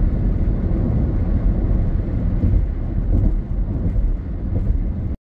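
Steady low rumble of a car driving at highway speed, with tyre, engine and wind noise heard inside the cabin. It cuts off suddenly near the end.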